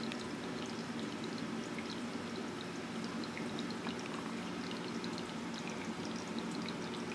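Reef aquarium's water circulation: steady pouring and trickling of water, with faint small bubbly ticks and a low steady hum underneath.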